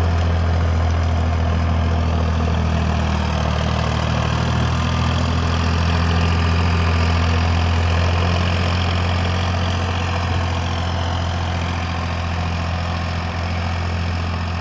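Farmtrac 60 tractor's diesel engine running steadily under load while pulling a harrow through dry soil, a constant low hum that fades a little in the second half as the tractor draws away.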